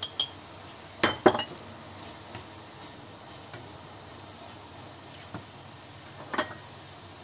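Glass spice jar and spatula clinking and knocking against a steel frying pan as paprika is added to minced meat and stirred, over a faint steady sizzle of the frying mince. A cluster of sharp knocks comes about a second in, a few light ticks follow, and a glassy clink sounds near the end as the jar is set down among other jars.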